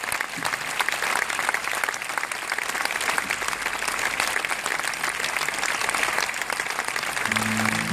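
A large outdoor crowd applauding steadily. Near the end the band's first sustained instrument notes come in under the clapping.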